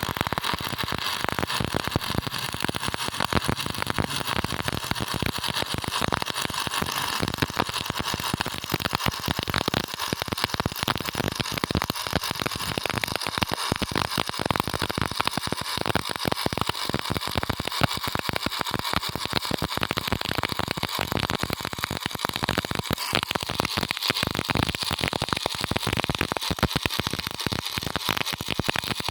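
Stick (SMAW) welding arc burning on a 3.15 mm electrode during a flat-position root pass, a steady dense crackle.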